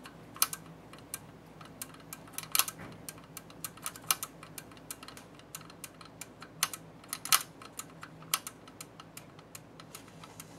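Irregular small, sharp clicks and taps from the metal parts of a Haag-Streit rotary diaphragm selector being flicked and turned by hand to set the clearance at its stop. The loudest clicks come about two and a half and about seven seconds in.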